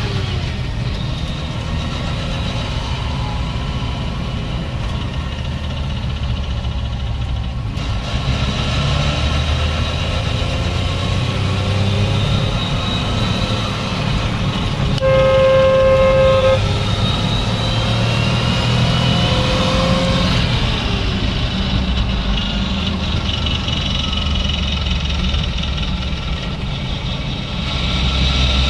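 A vehicle running with a steady low rumble and faint high whines that drift up and down, which the owner suspects may be an abnormal noise. Around the middle a horn-like tone sounds for about a second and a half.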